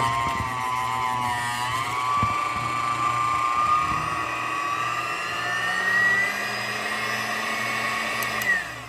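Electric hand mixer running with its beaters in thick cake batter, a steady motor whine that wavers in pitch as the load changes. Near the end it is switched off and the whine glides down and stops.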